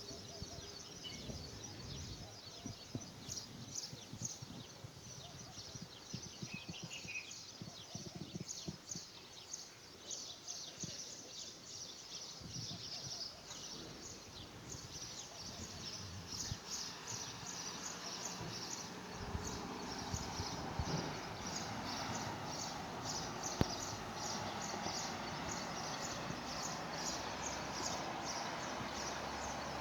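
Small birds chirping: short high-pitched chirps repeat several times a second and grow denser about halfway through, with a brief separate call a few seconds in, over a background hiss that grows louder in the second half.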